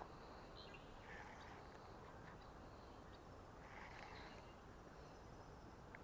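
Near silence: quiet outdoor background with a few faint bird calls, one about a second in and a longer one around four seconds.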